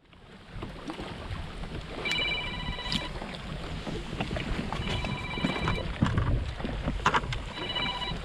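Wind and water noise around a kayak on open water, with scattered knocks and clicks. Three times, a high, evenly pulsing trill lasts about a second, like a bell or electronic ring.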